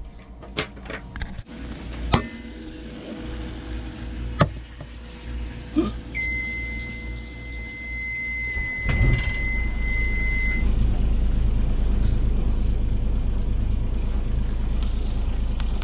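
A few clicks and knocks, then the Yanmar engine panel's alarm buzzer sounds a steady high beep for about four seconds with the key on and the oil-pressure warning lit. About nine seconds in, the Yanmar three-cylinder marine diesel starts and runs steadily; the buzzer cuts off a couple of seconds later as oil pressure comes up.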